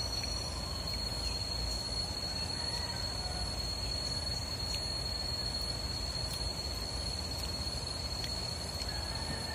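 Steady low outdoor rumble with a constant high-pitched tone running through it, unchanging throughout.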